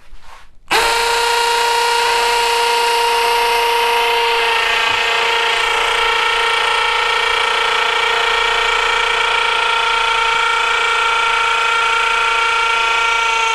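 Milwaukee M18 Fuel cordless hammer drill in hammer mode drilling into concrete. It is a loud, steady whine that starts about a second in and holds at one pitch and level throughout.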